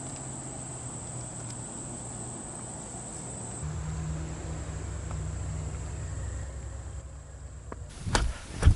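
A steady, high-pitched drone of insects over a low rumble that grows louder a few seconds in; both stop abruptly near the end, followed by two loud thumps.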